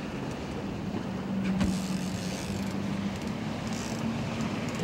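Steady hum of a boat motor, its pitch wavering slightly, over a background of wind and water noise.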